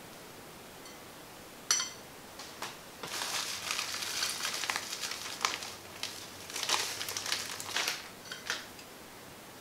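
Thin plastic bag crinkling in uneven bursts as crushed Oreo crumbs are shaken out of it into a glass bowl, after a single sharp click a little under two seconds in.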